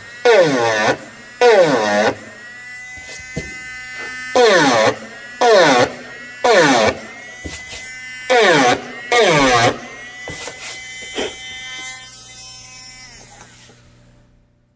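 Handheld rotary engraving tool with a small ball burr cutting into gold chrome paint: a steady whine broken by loud bursts, about a second apart, in which the pitch drops sharply. Near the end it fades and stops.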